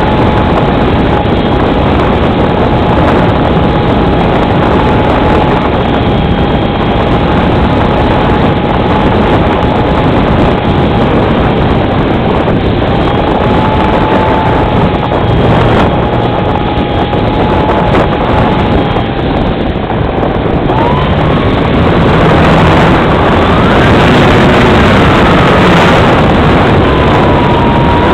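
Radio-controlled model plane's motor and propeller running, heard from a camera on board under heavy wind rush on the microphone. The motor's thin whine wavers and then climbs in pitch about two-thirds of the way through.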